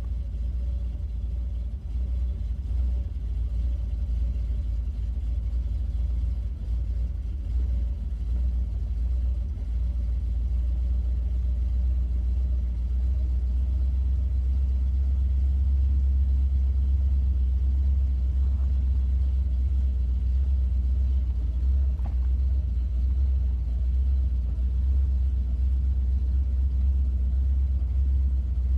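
Ford Mustang engine running with a steady low rumble, growing slightly louder over the first half and then holding.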